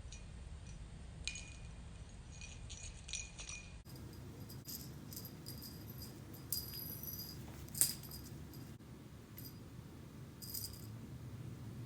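A small jingle bell in a cat's toy tinkling in short, irregular bursts as the cat plays with it.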